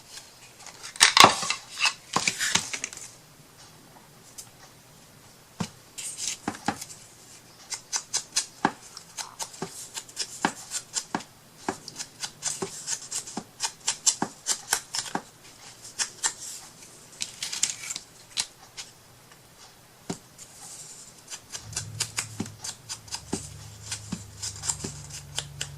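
Paper being cut with scissors and handled: a run of short sharp snips and clicks with paper rustling. A low steady hum comes in near the end.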